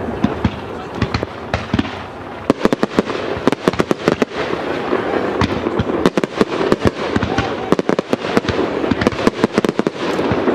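Aerial fireworks display: many sharp bangs and crackling pops over a steady background, growing dense and rapid a couple of seconds in.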